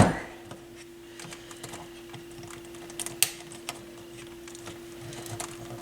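Scattered small clicks and taps of fingers working at a board clip inside a turntable, with one sharper click about three seconds in.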